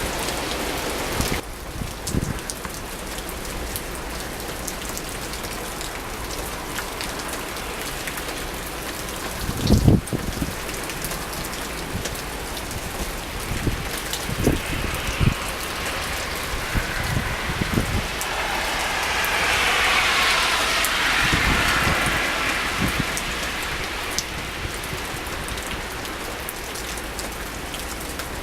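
Storm rain falling steadily in gusty wind, with the wind swelling for several seconds past the middle. A few low thumps, the loudest about a third of the way in, are likely gusts buffeting the microphone.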